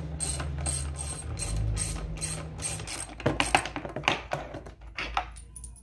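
Socket ratchet clicking as it backs out the 9/16 bolts that hold the motor to the pump housing of a Hayward Super Pump, about three even clicks a second. About three seconds in the clicks grow louder and less even.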